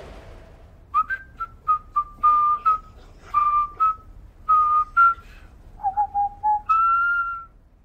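A person whistling a short unaccompanied melody: a run of short notes, then a brief lower phrase, ending on one long held note.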